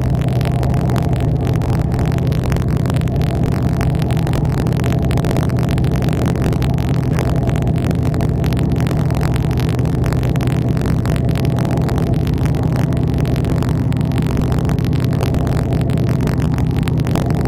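The fishing boat's engine running steadily, a constant low hum that holds one pitch.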